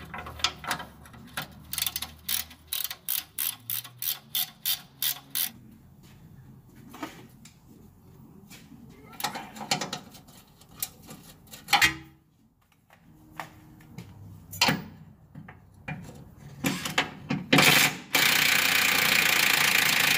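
Ratcheting combination wrench clicking in quick, even strokes, about two to three clicks a second, as the 17 mm torsion bar adjuster bolt is backed off to unload the torsion bar. This is followed by scattered clicks and knocks of tools on metal, and near the end a loud steady rushing noise that lasts about two seconds.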